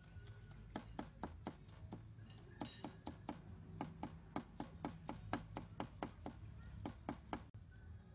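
Cleaver chopping garlic cloves on a round wooden chopping block, in quick even strokes of about four a second that stop abruptly near the end.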